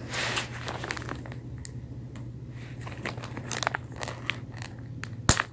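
Clear plastic zip-top bag crinkling and crackling as it is handled, with scattered small clicks and one sharp click near the end.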